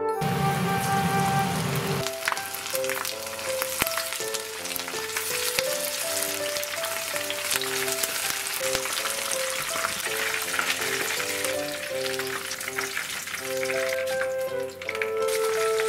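Starch-coated chicken wing drumettes shallow-frying in oil in a frying pan: a dense, steady crackling sizzle that thins out near the end. A low muffled noise comes before it in the first two seconds.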